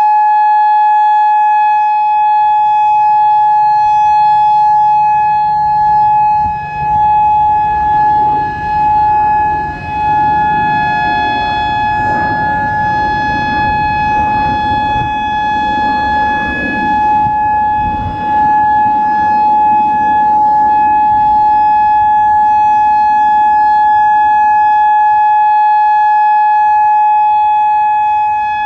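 Whelen WPS-4004 electronic outdoor warning siren sounding its full-alert steady tone: one unwavering pitch with overtones. A low rumble rises underneath for several seconds in the middle, and the siren briefly dips in loudness a few times.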